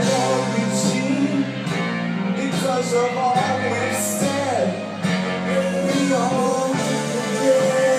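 Rock music from a 1974 studio session recording: a band with guitar and a singing voice, with a gliding pitch line about four seconds in.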